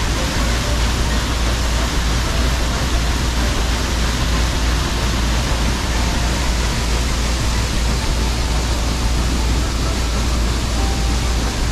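Stern paddlewheel of the Michigan paddle-wheel cruise ship churning the lake water: a steady rushing splash over a deep, even rumble.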